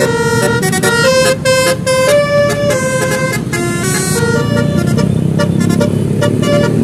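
Multi-tone telolet horn of a 'basuri' vehicle playing a tune in short chords that change pitch every fraction of a second, over steady engine and road rumble. The tune thins out in the last couple of seconds.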